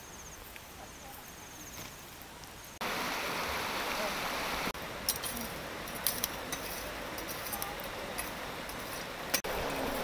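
Quiet countryside with faint insect chirping, then, about three seconds in, the steady rush of a shallow river with a run of sharp metallic clinks and taps from a machete blade working at a wood fire.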